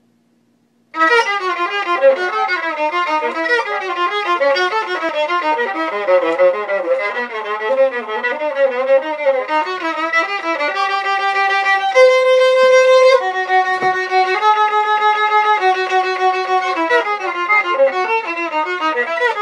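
Solo violin played with the bow, starting about a second in: a quick-moving melody, then from about halfway, longer held notes, the loudest a held note about two-thirds of the way through.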